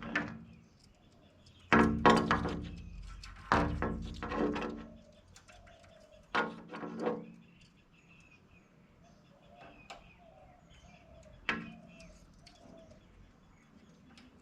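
Wild parrots calling: several loud, harsh calls, two longer ones in the first five seconds, another about six seconds in and a short one near the end. Faint short bird calls repeat between them.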